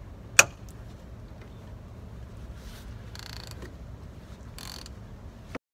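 Hand ratchet wrench being worked on a suspension bolt: a single sharp metallic clink about half a second in, then three short runs of quick ratchet clicking.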